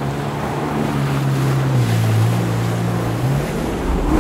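Jet ski engine running with its pitch stepping up and down, over a steady rush of water spray.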